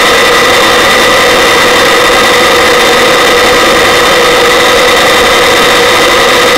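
Search-and-rescue helicopter in flight, its turbine engine and rotor running steadily: a loud, even rushing noise with a steady high whine over it.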